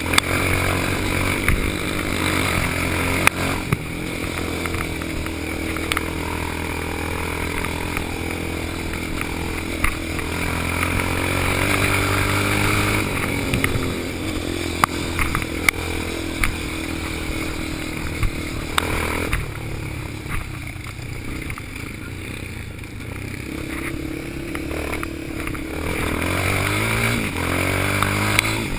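Yamaha Raptor quad's single-cylinder four-stroke engine running under way, revving up and down as the throttle is worked, with scattered knocks and clatter from the rough track. The engine eases off for several seconds past the middle and picks up again near the end.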